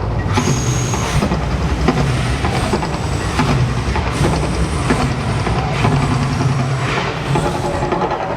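Steady loud rumbling roar from the Mirage volcano eruption show, swelling in repeated surges about once a second.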